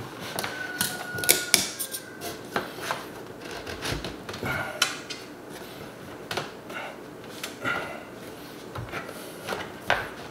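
Scattered clicks and knocks of hands working a one-handed bar clamp against wooden kitchen cabinet face frames, coming at uneven intervals.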